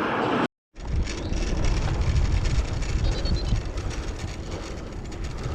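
Wind buffeting the microphone of a cyclist riding along a country lane: a steady low rumble with a rushing haze above it. The audio drops out for a moment about half a second in.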